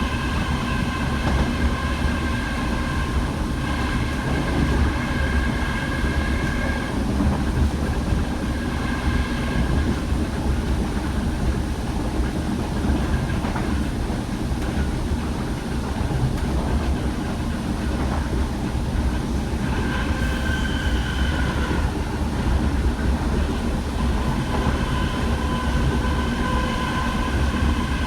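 DART class 8100 electric train running, heard on board: a steady rumble of wheels on the rails with an electric whine at several pitches that fades and returns.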